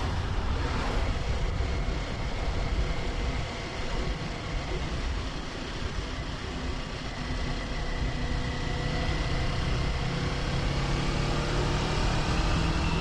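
Kawasaki Ninja 400's parallel-twin engine running under way, with wind rushing past a helmet-mounted camera. The engine eases off briefly around four seconds in, then its pitch climbs near the end as it pulls again.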